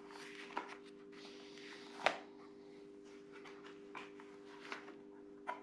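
Plastic Airflaps levers on a motocross helmet being flipped by hand to move the goggles: light rustling and handling, a sharp snap about two seconds in, and a few softer clicks later. A steady hum runs underneath.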